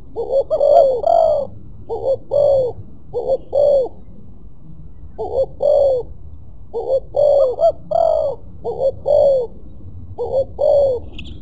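Spotted dove cooing repeatedly, in short phrases of two or three notes with pauses between them.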